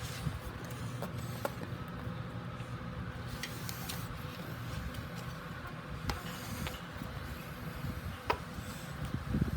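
Faint scattered clicks and rubbing as a bike tyre and inner tube are handled, the valve being worked into the rim hole, over a steady low hum.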